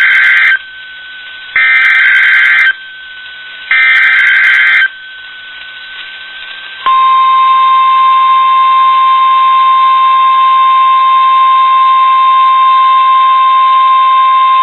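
NOAA Weather Radio test alert: the tail of one SAME digital header burst, then two more, each a loud buzzy burst of data tones about a second long, about two seconds apart. About seven seconds in, the steady 1050 Hz warning alarm tone starts and holds.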